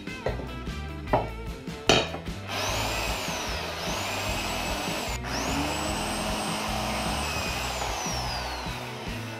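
Electric drill boring into a perforated steel sheet, its whine climbing as it spins up, stopping briefly about halfway and starting again. A few sharp knocks come before the drilling starts.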